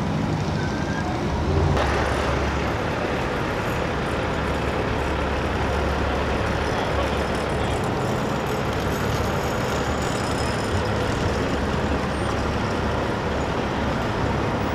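Diesel engine of a big-rig tractor running with a low, steady rumble as it rolls slowly past, over general traffic noise. The sound gets louder about two seconds in.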